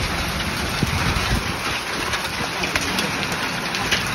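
Heavy rain pouring steadily onto the ground and nearby surfaces, a constant hiss with scattered patter, with a low, uneven rumble of wind on the microphone underneath.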